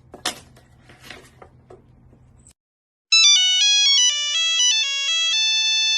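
A short electronic ringtone-style melody of clean beeping notes stepping up and down, starting about three seconds in and stopping abruptly. Before it come faint rustles and clicks over a low hum, with one sharp click near the start.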